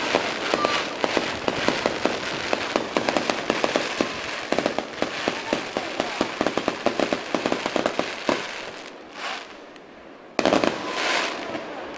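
Aerial fireworks crackling: a dense run of rapid pops for about eight seconds that dies away, then a sudden loud burst about ten and a half seconds in.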